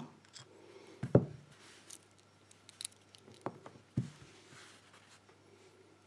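A few small clicks and taps of metal parts handled by hand: a brass padlock and its small steel security screw. The strongest click comes about a second in, with two more near the middle, over faint rubbing.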